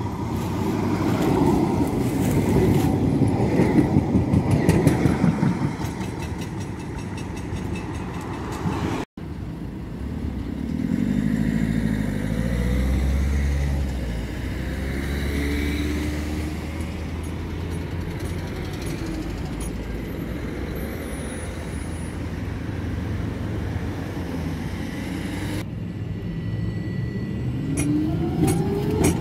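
Electric trams passing on grass-covered track. Steel wheels rumble on the rails, loudest a few seconds in, and the audio breaks off sharply about nine seconds in. A second tram, a Eurotram, approaches with a low hum and then passes close near the end, its motors giving a rising whine.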